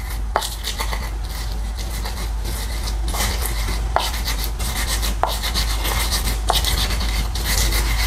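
Red chilies, garlic and salt being crushed and ground with a pestle in a wooden mortar (Indonesian cobek and ulekan): steady rubbing and scraping, with a sharp knock of the pestle every second or so.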